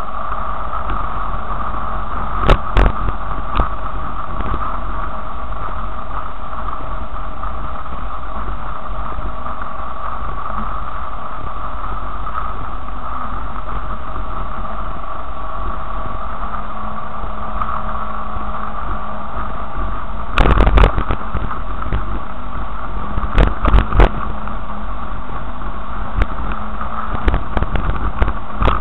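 Car engine running steadily at low speed, heard from inside the vehicle as it crawls over a rutted dirt track. Sharp knocks and rattles come as it jolts over bumps: once a few seconds in, then in clusters through the last third.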